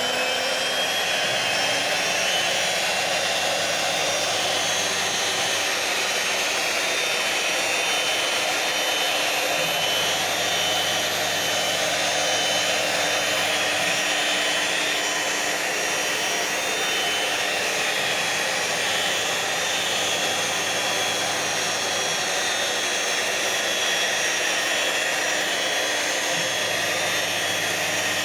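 CNC router spindle running at speed with a steady high whine and rushing noise. Its pitch rises just at the start as it finishes spinning up, and a low hum comes and goes underneath.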